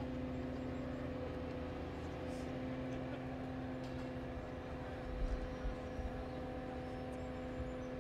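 Mobile crane's diesel engine running steadily under load as it hoists a dump truck, a constant droning hum. A few brief low thumps come in about five seconds in.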